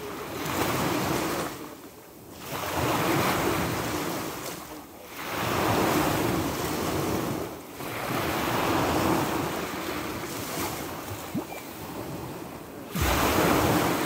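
Sea waves breaking and washing in, the rush swelling and falling every two to three seconds, with a sudden loudest surge near the end.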